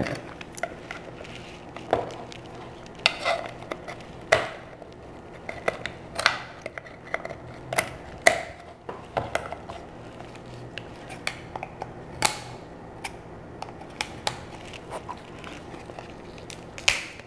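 Kitchen shears cutting through a boiled giant lobster claw's shell, which is then cracked and pried apart by hand: irregular sharp snips and cracks, a loud one every second or two with smaller crunches between.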